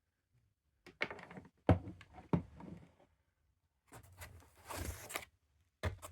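Packaging being handled while a cardboard box is unpacked: a few sharp knocks and thumps in the first half, then a second or so of rustling packaging, and a couple more clicks near the end.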